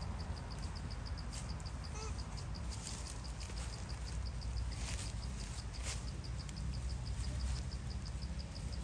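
An insect's high, even chirp repeating about five times a second, over a steady low rumble, with a few brief rustles about five and six seconds in.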